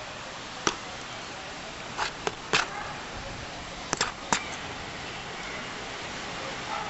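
Sharp taps and clicks of fingers handling an Ainol Novo 7 tablet, over a steady hiss: one about a second in, three close together around two seconds in, and three more around four seconds in.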